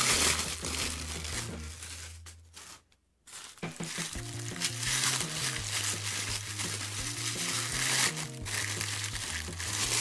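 Tissue paper crinkling and rustling as a plastic toy cup is unwrapped by hand, over background music. The sound breaks off briefly about three seconds in, then the crinkling resumes.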